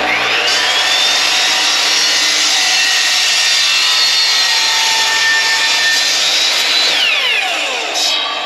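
Ryobi chop saw (miter saw) starting up with a quickly rising whine and running loud and steady as it cuts through a plastic coupling and the wooden board holding it. About seven seconds in, the whine falls as the trigger is let go and the blade spins down.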